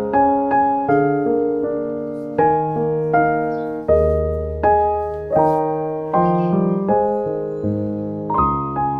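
Background piano music: a gentle, unhurried run of notes and chords, each struck and then fading before the next.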